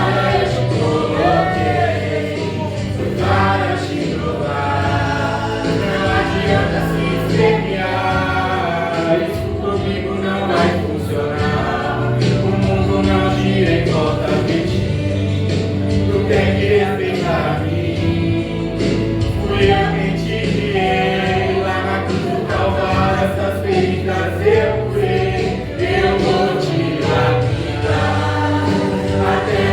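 Gospel song: several voices singing together over sustained bass notes from the accompaniment.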